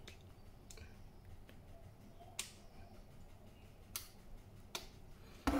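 Sharp single clicks from a small speaker wired to the RC receiver's channel 4 output, a few faint ones and two louder ones about two and a half and four seconds in. A plain speaker gives one click where a buzzer would give a long beep.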